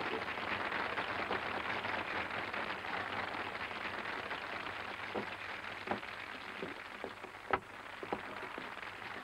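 Audience applauding. The clapping slowly dies away, and a few separate claps stand out in the second half.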